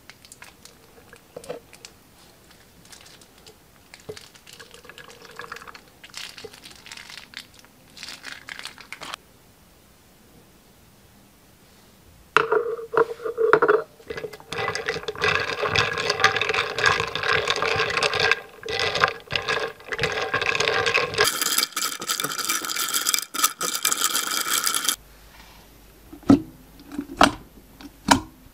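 Slime-making sounds: a snip of scissors cutting a piping bag, then soft sounds of slime squeezed out, followed by loud, wet stirring as glue and activator are mixed with a plastic honey dipper. The stirring stops suddenly, and near the end a few sharp clicks come as fingers press into glossy slime full of plastic fruit charms.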